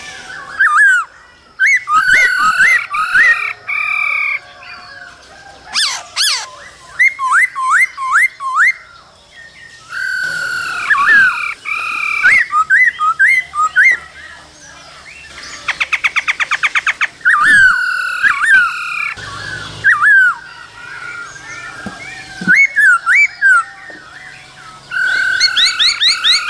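Black-throated laughingthrush singing loudly in runs of quick rising whistled notes, varied from phrase to phrase, with a fast even rattle of about ten notes a second a little past the middle.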